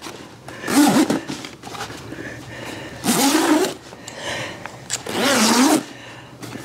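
Three rasping scrapes about two seconds apart, each with a bending squeaky pitch, from the zipper and fabric skin of an inflatable kayak's enclosure being worked on a concrete deck.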